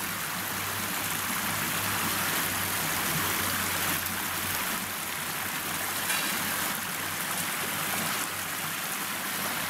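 Stream water rushing steadily, with a low hum under it for the first few seconds that fades out about halfway through.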